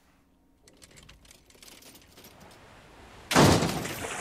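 Cartoon sound effects: a run of quick light clicks, then a sudden loud noisy burst about three seconds in that fades away.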